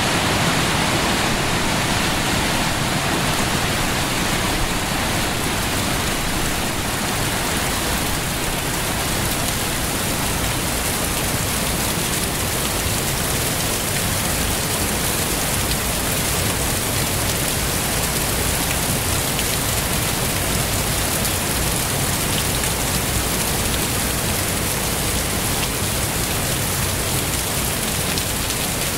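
Loud, steady rush of a waterfall, an even wash of noise from low to high pitches.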